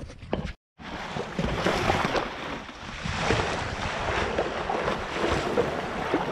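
Wind buffeting the microphone over choppy open sea, with water rushing and splashing against the sea kayak's hull and paddle. The sound cuts out completely for a moment a little under a second in.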